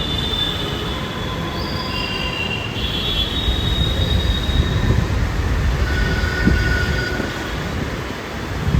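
Metro train running on its elevated track, its wheels squealing in several high, drawn-out tones over a steady low rumble.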